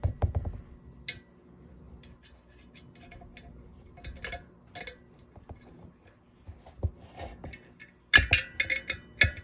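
Metal bolts, nuts and a hand wrench clicking and clinking as the freewheel's mounting bolts are worked around the hub, with scattered single clicks and a quick run of clinks near the end.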